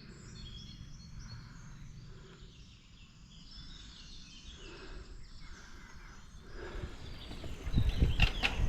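Outdoor woodland ambience with birds chirping faintly. Near the end a louder low rumble with sharp knocks builds up.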